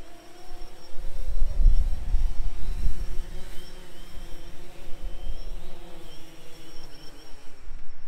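DJI Phantom 3 Standard quadcopter's propellers buzzing with a slightly wavering pitch as it is flown down to land in strong wind, with gusts rumbling on the microphone about one to three seconds in.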